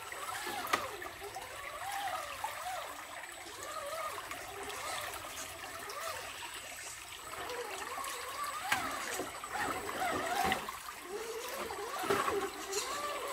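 A shallow creek trickling and gurgling over rocks, with a few short splashes as a 1/10-scale RC crawler's tyres wade through the water.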